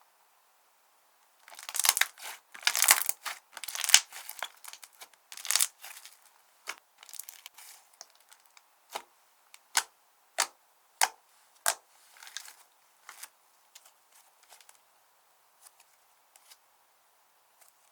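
Slime being worked by hand, squeezed and stretched, crackling and popping with trapped air. A dense crackle runs for about four seconds, then gives way to single sharp pops that come further and further apart.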